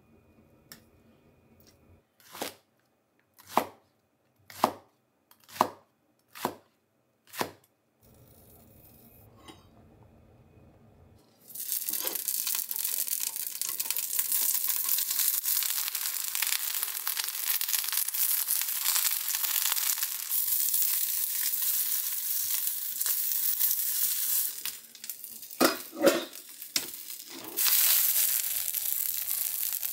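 Pieces of Japanese long onion (negi) searing in hot oil in a small iron skillet: a loud, steady sizzle that starts suddenly as they go into the pan, dips for a moment with a few knocks, then comes back strong. Before the sizzle, six soft strokes about a second apart.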